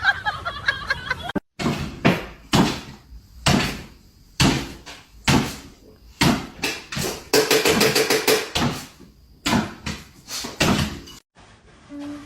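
A series of loud knocks or bangs, about one a second, each with a short ringing tail, coming faster for a moment in the middle.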